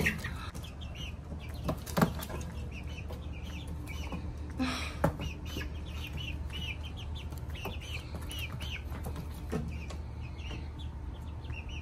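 Young Rhode Island Red and Easter Egger chicks, about four weeks old, peeping over and over in short chirps. There are a few sharp knocks and a brief rustle about five seconds in.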